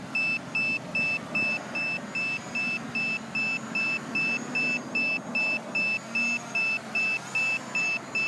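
Drone flight-app alert beeping: short high-pitched beeps repeating steadily, about two and a half a second.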